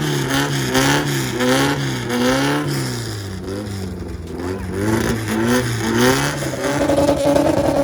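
Car engine revved through its exhaust in quick repeated blips, the pitch climbing and dropping about every half second, easing briefly in the middle, then held at a higher pitch near the end.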